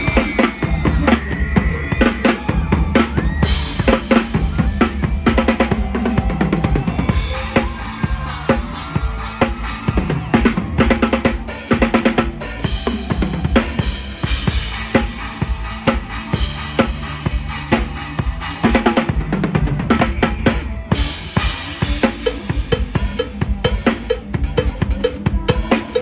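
Drum kit played live in a mor lam band: kick drum, snare and rimshots keep a steady driving beat, with the band's other instruments underneath.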